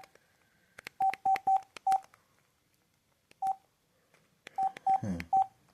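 Keypad beeps from an LG 220C flip phone as its buttons are pressed to scroll through the menus: eight short beeps of one pitch, each with a faint key click, in irregular groups.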